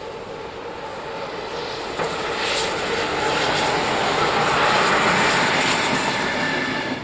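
NSW R class 4-6-4 steam locomotive R766 with a diesel locomotive coupled behind it, running past on the mainline: the noise of the train swells to its loudest about four to six seconds in as the locomotives go by, then falls away.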